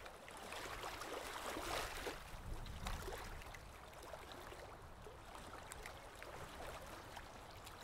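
Faint steady noise like a low hiss, a little louder in the first few seconds, with no speech or clear tones.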